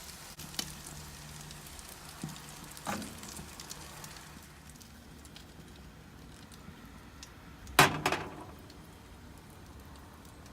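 Trout frying in a pan, sizzling with fine crackles that thin out after a few seconds, with a couple of light knocks and one louder ringing clink near the end.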